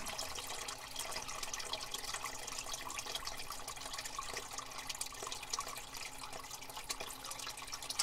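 Groundwater trickling and splashing into a basement sump pit from the French drain inlet, with scattered drips, while the sump pump sits switched off and the pit refills.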